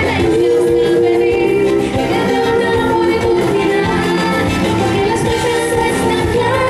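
Live band playing a pop song, with female lead and backing vocals over bass guitar and percussion.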